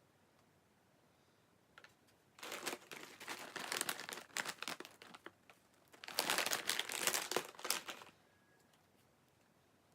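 Plastic bag of Banana Kick corn-puff snacks being crinkled and squeezed by hand, in two bursts of dense crackling: one about two and a half seconds in, another about six seconds in.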